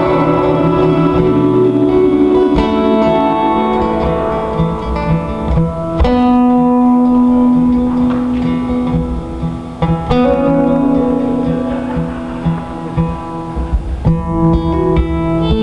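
Live band music led by guitar: held, ringing chords, with a new chord struck about every four seconds.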